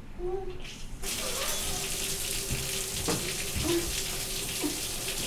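Water running steadily from a tap, turned on about a second in.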